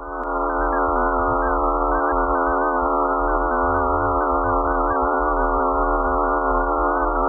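Sustained eerie electronic drone presented as the sound of space: several pure tones held together at steady pitches, with the higher ones wavering slightly above them.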